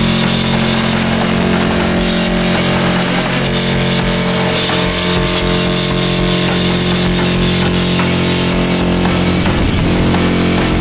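Harsh noise music: a loud, dense wall of distorted static filling the whole range, with steady low droning tones underneath. About nine and a half seconds in, the low drones break up into a shifting, churning texture.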